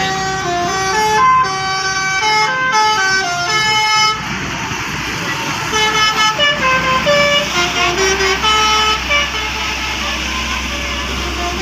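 A bus's basuri musical horn (a 'telolet' horn) playing a melody of quick stepped notes, with the bus engine running low underneath.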